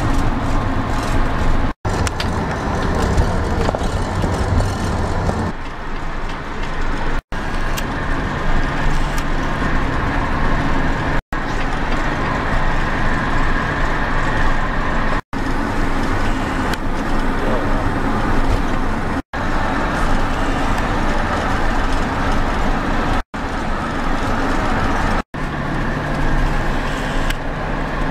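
Steady road and engine noise heard from inside a moving car, with a low hum under the tyre noise. The sound cuts out completely for a split second every few seconds.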